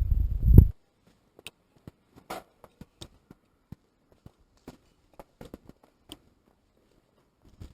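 A loud low rumble that cuts off abruptly in the first second, then faint, irregular footsteps and crunches on a debris-strewn floor.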